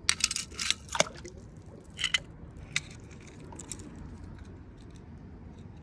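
Toy cars being handled: a quick run of light clicks and knocks in the first second, a few more about two seconds in, then faint handling noise.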